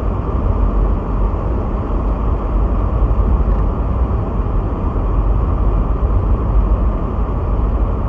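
Steady, loud low rumble inside a car's cabin while driving on a snow-covered road in blizzard winds: road, engine and wind noise together.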